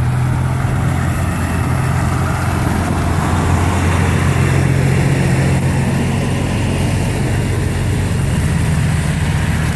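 Vehicle engine running at a steady idle, a low even hum with a hiss of noise above it.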